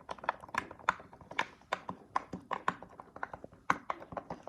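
Bubbles of a push-pop fidget toy being pressed one after another by finger, a quick uneven run of small sharp pops, about five a second.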